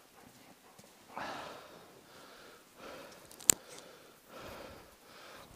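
A person breathing hard, several breaths close to the microphone, and one sharp gunshot crack about three and a half seconds in.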